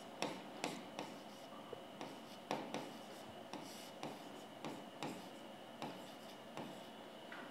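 Stylus pen tapping and scraping on the glass of an interactive touch-screen board while handwriting words: a faint string of short, irregular strokes.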